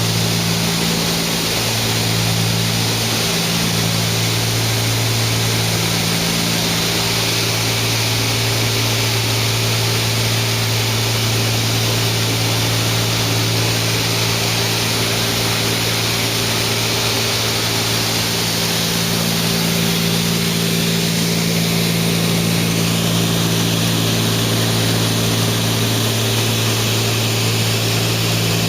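Cessna 310's twin piston engines and propellers running steadily, a low steady drone with a strong hiss of airflow over it.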